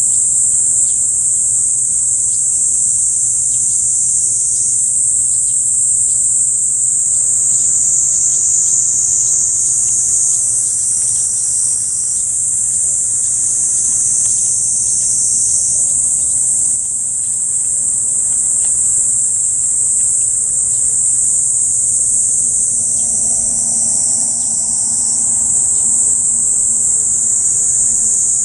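Loud, unbroken high-pitched shrilling of cicadas in summer trees, with the pitch shifting slightly a few times.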